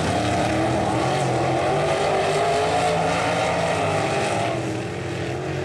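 Several dirt-track sprint car engines running hard in a pack, their engine notes rising and falling as they go around the track, easing off a little about four and a half seconds in.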